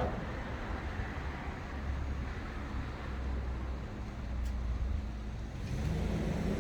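Low, steady background rumble of road traffic.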